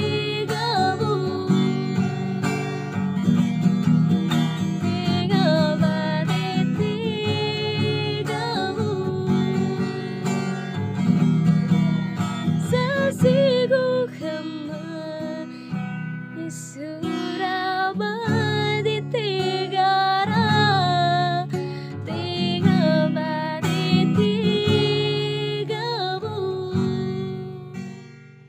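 A woman singing with her own acoustic guitar accompaniment. The song ends near the close as the last guitar chord rings out and fades.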